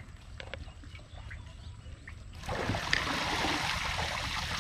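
A few faint clicks, then from about halfway in a steady, louder splashing and trickling of shallow water where a man wades beside a boat with a plastic crate of fish.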